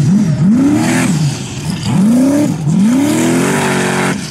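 Formula Offroad buggy engine revving in repeated sharp throttle bursts. The pitch swoops up and falls back about five times, and the last rise climbs longer and holds high near the end.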